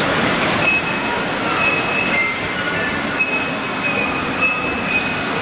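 H0-scale model train running on the layout: a steady rumbling noise with short, high squeals coming and going several times.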